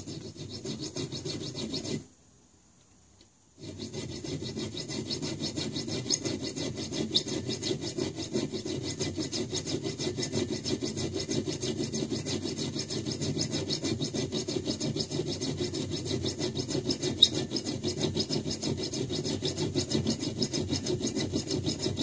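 Flat hand file rasping back and forth in quick, even strokes across a small screw clamped upright in a vise, filing the screw by hand. The strokes stop for about a second and a half near two seconds in, then carry on steadily.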